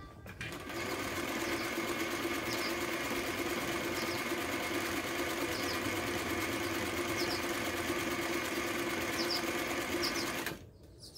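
Singer 319W zigzag sewing machine running steadily, sewing a zigzag stitch, with an even fast rhythm over a constant hum. It starts about half a second in and stops shortly before the end.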